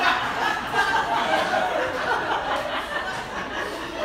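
Small audience laughing and chuckling at a punchline, the laughter tapering off gradually.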